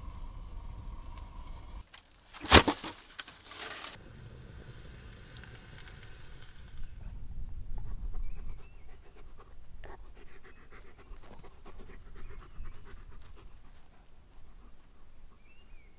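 A dog panting in quick, even breaths through the latter half. About two and a half seconds in there is one loud, sharp crack.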